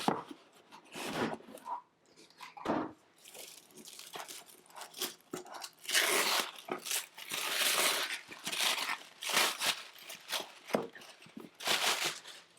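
Cardboard box and paper packaging rustling, crinkling and tearing as the contents are pulled out, in irregular bursts that run most continuously through the middle stretch.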